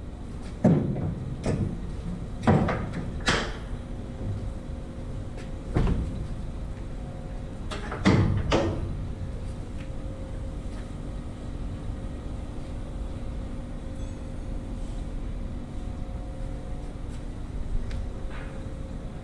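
Metal knocks and clanks from the latch and hinges as the rear door of an aluminium tipper trailer body is unlatched and swung open. There is a quick run of knocks in the first few seconds and a heavier clang about eight seconds in, then only a steady low hum.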